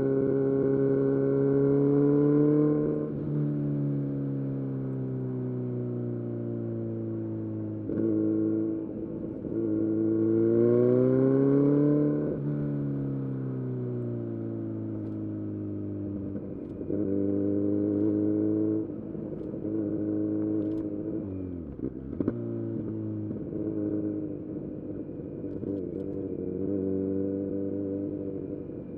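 Kawasaki Z900's inline-four engine through an SC-Project full exhaust system, ridden on the road: the revs climb and fall again and again with throttle openings, gear changes and closing the throttle. They drop to their lowest a little past the middle, then pick up again.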